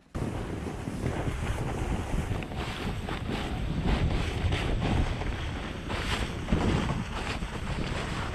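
Wind buffeting the camera's microphone while snowboarding downhill at speed, a steady rumbling rush, with the board scraping and carving over the snow in repeated swells.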